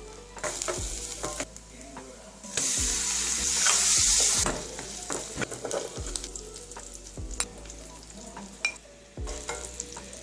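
Food sizzling and being stirred in hot oil in a pan. The sizzle comes in bursts, loudest for about two seconds in the middle.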